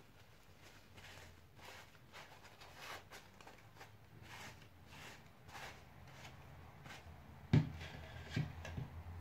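Paper towel rubbing and wiping over a painted 3D-printed plastic mask in repeated strokes, about one or two a second, wiping dark paint off the raised areas. A sharper thump comes about three-quarters through, followed by two smaller knocks.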